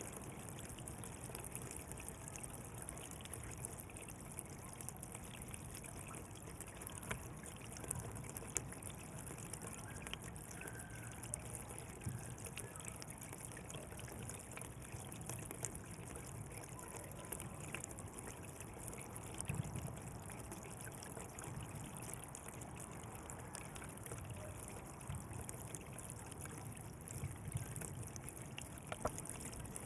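Water flowing steadily along a channel, trickling and splashing with many small drops and gurgles.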